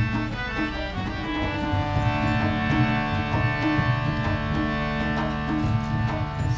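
Instrumental passage of Indian devotional music: a harmonium holds steady chords over a running tabla rhythm, with more held notes joining about two seconds in.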